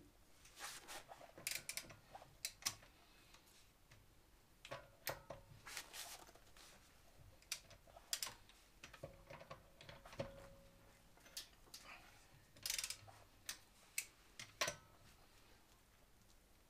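Faint, irregular metallic clicks and clinks of a socket wrench and wheel bolts as a car wheel is bolted onto its hub; a few sharper clicks stand out near the start and again in the second half.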